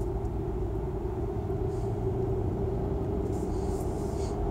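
Car driving, heard from inside the cabin: a steady low engine and tyre rumble with an even hum.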